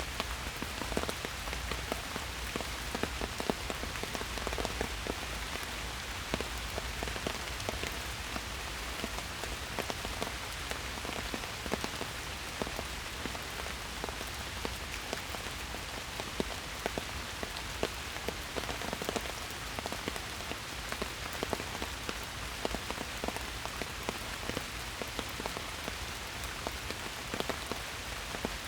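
Steady rain falling through trees, a dense patter of many separate drops on leaves and surfaces over an even hiss, with a low rumble underneath.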